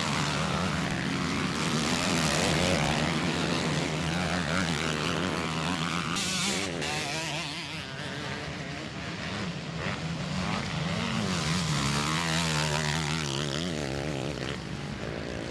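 Several motocross bike engines racing, revving hard with the pitch rising and falling as the riders shift and work the throttle through the turns.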